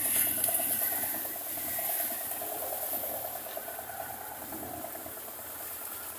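Diesel engine of heavy farm machinery running steadily with a fast pulsing note, growing gradually fainter over the last few seconds.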